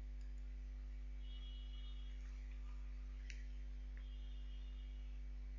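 Steady low electrical mains hum, with two faint mouse clicks about three and four seconds in.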